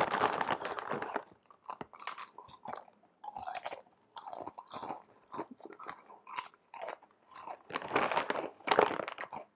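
Someone chewing something crunchy, in irregular crackling bursts, loudest at the start and again near the end.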